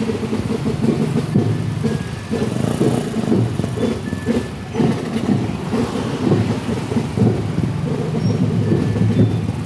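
Motorcycle engines running while riding slowly in a line of motorcycles, heard as a steady, rough low rumble mixed with wind buffeting the microphone.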